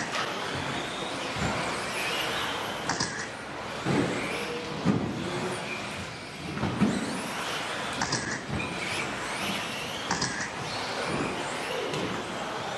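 Radio-control 2WD buggies racing on a carpet track, their electric motors whining and gliding up and down in pitch under a steady hiss of tyres. A few sharp knocks and thumps come from the cars landing jumps or hitting the track edges.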